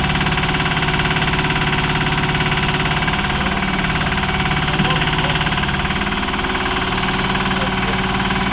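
Diesel engine of a heavy-haul vehicle running steadily, with a slight change in its tone about six seconds in.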